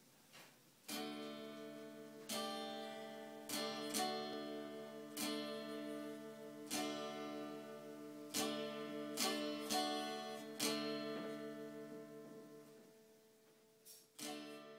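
Acoustic guitar music: chords strummed one after another and left to ring, dying away near the end before one last strum.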